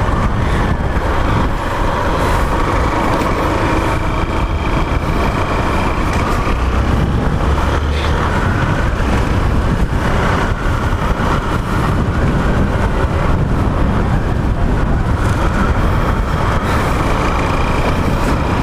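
Motorcycle engine running steadily while riding, mixed with heavy wind rush on the microphone.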